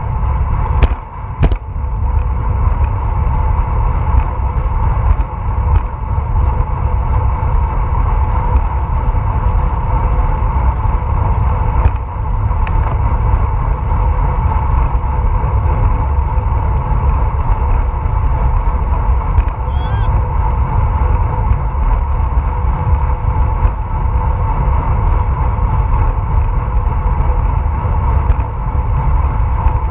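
Wind rushing over an action camera's microphone while cycling at speed, with steady road and tyre noise and a constant hum underneath. A few sharp clicks come about a second in.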